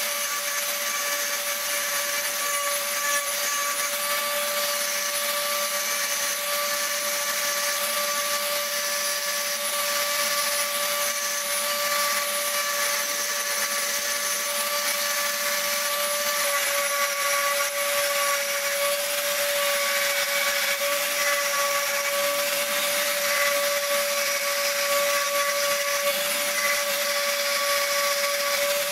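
Dremel rotary tool with a diamond burr running at steady high speed, grinding into wet stone: a constant motor whine over a gritty hiss.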